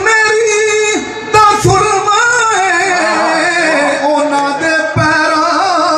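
A man singing a Punjabi devotional song solo in a long, wavering, ornamented melody.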